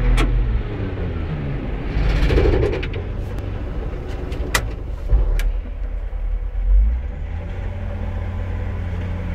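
Caterpillar 972H wheel loader's diesel engine working, its pitch falling over the first two seconds and rising again near the end. A few sharp clicks are heard along the way.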